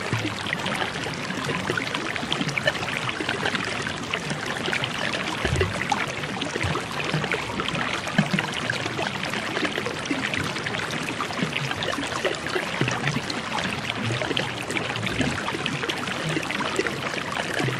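Steady running water, like a flowing stream, with a fine crackle of trickling and splashing and no breaks.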